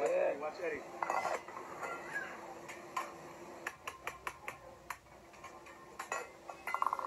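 Metal cooking utensils clinking and tapping on a hibachi teppanyaki griddle as the chef works with a spatula and a metal dome cover, with a quick run of about six sharp clinks in the middle.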